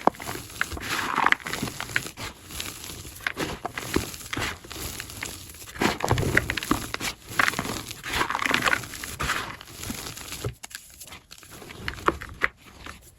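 Blocks of gym chalk being crushed, crunching and crumbling in quick, uneven crackles, played at double speed. The crunching grows quieter in the last couple of seconds.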